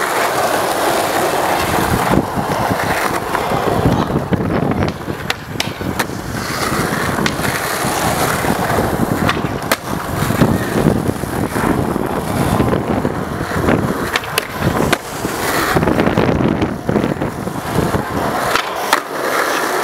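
Skateboard wheels rolling loudly over rough asphalt, a steady grinding rumble, broken every second or two by sharp wooden clacks of the board hitting the ground during tricks.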